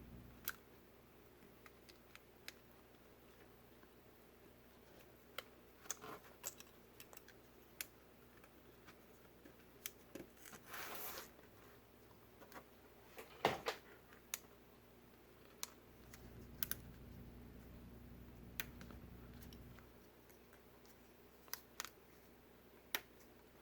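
Faint, scattered small clicks and handling noises of fingers working flex cable connectors onto an iPad Pro's logic board, with a brief scrape about eleven seconds in and a sharper click a couple of seconds later.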